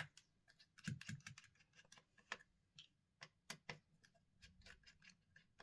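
Faint, irregular small clicks and taps of hand tools and small parts being handled while the earpiece speaker is taken out of a smartphone.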